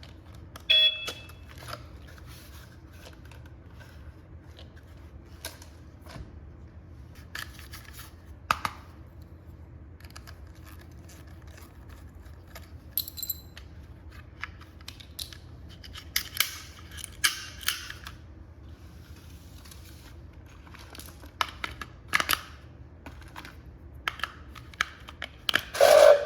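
Handling of a toy and its packaging: scattered clicks and taps with short bursts of plastic rustling, over a faint steady hum. A single short high beep comes about halfway through.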